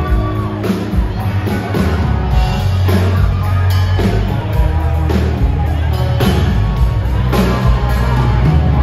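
Live country-rock band playing loud through a club PA: electric guitars, bass and a drum kit keeping a steady beat.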